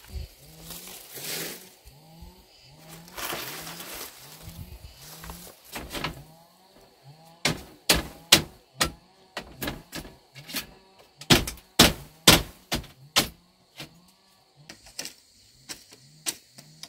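Dry palm-leaf thatch rustling and crackling as it is pulled from a roof. From about six seconds in comes a run of sharp knocks and clacks of bamboo poles being handled, then quieter rustling near the end.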